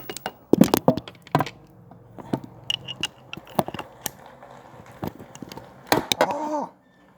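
Irregular metal clicks and knocks of an 11 mm socket being handled and pushed onto a 3/8-inch ratchet's drive, with a voice exclaiming near the end.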